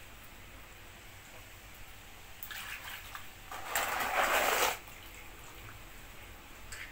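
Water splashing and sloshing in a plastic basin as a fish is washed and lifted out. There is a short splash about two and a half seconds in, and a louder splash lasting about a second near four seconds in.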